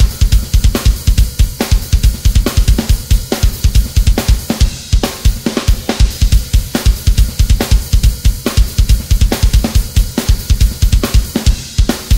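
Background music: a drum-driven rock track with rapid, even bass-drum hits under a constant wash of cymbals and snare.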